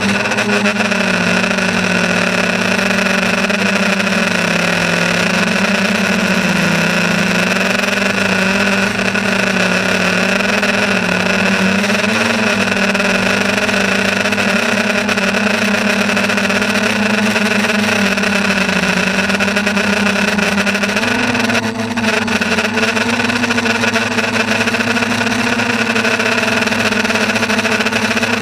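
A motor running steadily, its hum made of several tones that waver slightly in pitch, with a brief dip about 22 seconds in.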